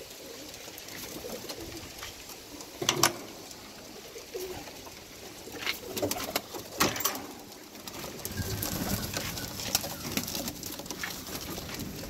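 Birmingham Roller pigeons cooing in a loft, with a few sharp clatters and knocks in between.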